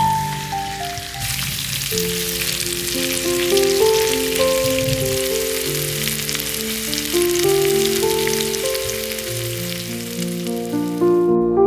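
Food frying in hot oil in a pan, a steady sizzle that starts about a second in and cuts off abruptly just before the end, over soft background music of plucked and keyboard notes.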